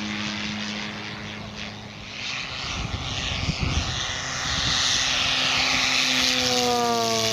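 Propeller noise from an electric giant-scale RC P-51D Mustang, its 24x8 two-blade prop driven by a brushless motor with no sound generator fitted. The rushing noise swells from about halfway through as the model comes in low, and near the end its tone drops in pitch as it passes.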